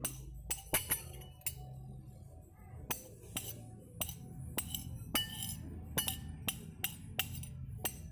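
Spoons clinking against ceramic bowls while eating meatball soup: about twenty irregular, sharp clinks, some ringing briefly.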